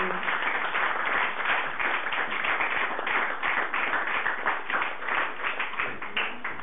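Audience applauding: dense clapping that thins out toward the end.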